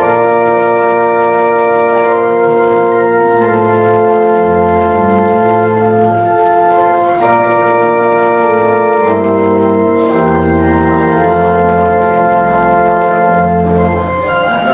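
Church organ playing a slow piece of held chords, with low bass notes changing every second or so under a sustained upper melody.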